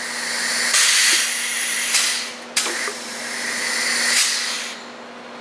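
Compressed air hissing from the air-powered Keller Tool 10 DCH compression riveter and its air line, in two long bursts that start suddenly, build, and then die away.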